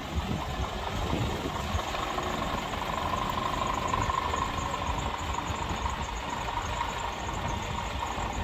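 Scania R450's 13-litre straight-six diesel running steadily at low revs as the 6x2 tractor unit drives slowly.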